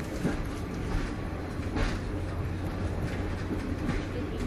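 Moving passenger train heard from inside the carriage: a steady low rumble and hum of the running train, with a few short clicks and knocks from the wheels and coach, the sharpest a little under two seconds in.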